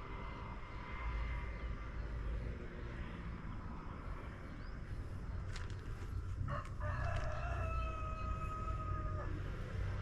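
A rooster crowing once: a single drawn-out call starting about six and a half seconds in and lasting about two and a half seconds, over a steady low rumble.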